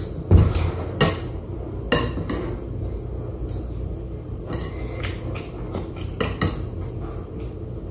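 Metal spoon clinking and scraping against a plate of rice while eating: a string of sharp clinks spaced irregularly, the loudest just after the start.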